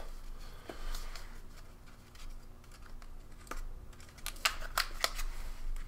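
MRE drink-powder pouch being handled and torn open: light crinkling and scattered sharp clicks of the packaging, with a quick run of clicks about four to five seconds in.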